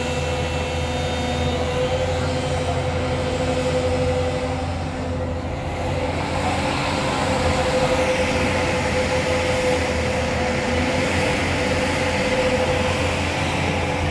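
JCB excavator's diesel engine running under working load, a steady low hum with a constant whine over it, a little louder from about six seconds in.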